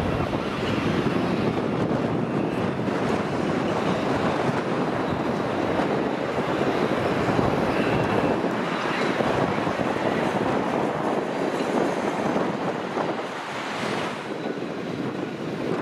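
Steady outdoor wash of wind on the microphone and passing road traffic, an even rushing noise with no distinct events.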